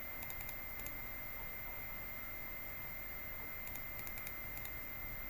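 Two short runs of faint, quick clicks from working a laptop, about a third of a second in and again around four seconds, over a steady high electronic whine.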